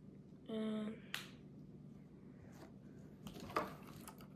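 Small plastic building-kit parts being handled, giving a few sharp clicks and taps, the loudest about three and a half seconds in. A short hummed voice sound comes about half a second in.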